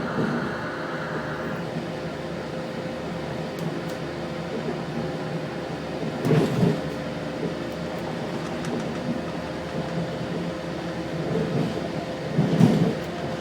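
Interior of an Adelaide Metro 3100 series diesel railcar under way: steady running rumble with a steady hum. A higher whine cuts out about two seconds in. Two clusters of knocks, about six seconds apart, come as the wheels pass over the track.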